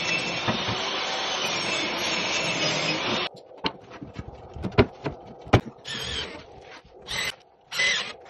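Power tool running steadily, then stopping suddenly about three seconds in. Scattered knocks and clicks follow, with a few short bursts of the tool near the end.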